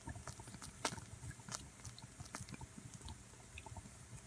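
Esbit stainless steel coffee maker sputtering faintly, with scattered irregular small pops and clicks as the last hot water is still being forced up through the grounds.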